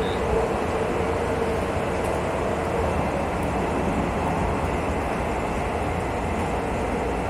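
JR West local electric train running along the track: a steady rumble and hiss, with a humming tone that fades out about three seconds in.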